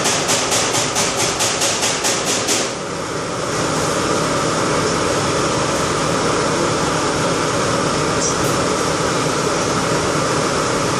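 DMG CTX 310 ecoline CNC lathe running. A rapid, even pulsing of about five beats a second stops a little under three seconds in, leaving a steady machine hum with several held tones.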